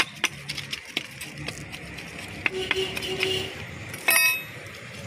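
A small hand tool digging and scraping through hardened potting soil in a terracotta pot, making repeated clicks and scratches as the top few inches of soil are loosened. About four seconds in, a short, loud high-pitched tone stands out as the loudest sound.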